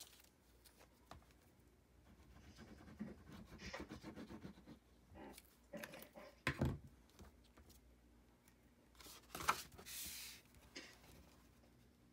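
Faint rustling, scraping and tapping of cardstock being handled on a craft cutting mat, with a sharper knock about six and a half seconds in and a louder rustle about nine and a half seconds in.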